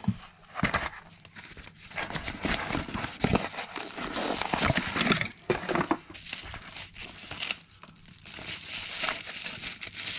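Packaging crinkling and rustling with small clicks and knocks as a LiPo battery pack is unwrapped and handled, busiest in the middle and again near the end.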